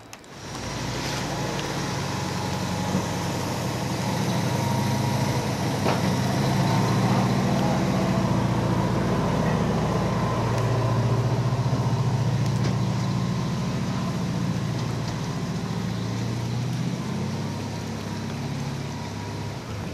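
An engine running steadily with a low, slightly wavering drone; it cuts in abruptly right at the start, grows a little louder toward the middle and eases off near the end.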